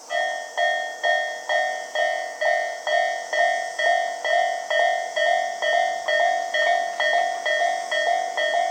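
Japanese railway level-crossing warning bell ringing in a steady series of struck, ringing tones at about two strikes a second. It has an unusual, odd-sounding tone for a crossing bell, and it starts at the very beginning.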